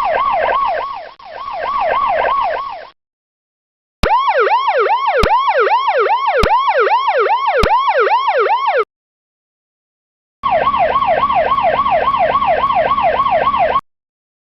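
Electronic police siren in a fast yelp, its pitch sweeping up and down about three times a second. It comes in three separate bursts with short silences between them, and the middle burst has sharp clicks about once a second.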